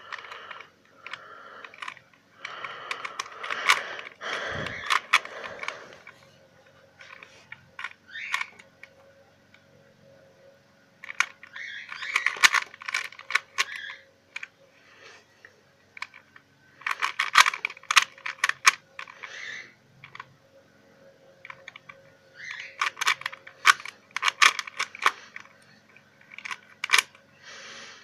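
A plastic 3x3 Rubik's cube being turned by hand: bursts of quick clicking and rattling as the layers are twisted, broken by short pauses.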